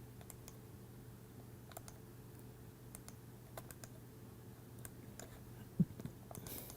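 Faint, scattered clicks of a computer keyboard and mouse being worked at a desk, with one louder low thump about six seconds in, over a steady low electrical hum.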